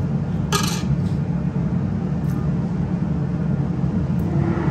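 Steady low rumble of a kitchen's gas range and ventilation, with a short scraping sound about half a second in while roasted chicken pieces are moved into a pot of gravy.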